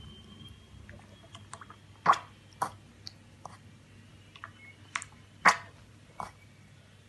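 Piglet slurping and lapping milk from a stainless steel bowl: a string of short wet smacks and clicks, a few of them louder.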